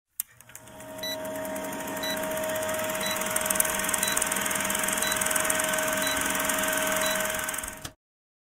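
Old-film countdown sound effect: a film projector's steady whirring clatter with hiss, marked by a short blip about once a second. It fades in over the first second and cuts off abruptly near the end.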